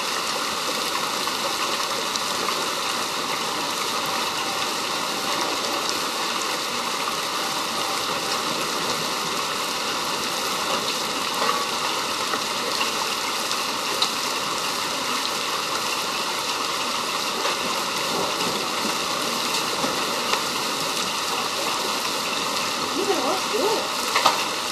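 Hail mixed with rain pouring down on lawns and pavement: a steady, dense hiss with an occasional sharper tick of a hailstone striking.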